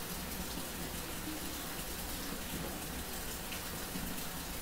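Steady background hiss with a low hum underneath, the recording's noise floor in a pause between spoken quiz questions.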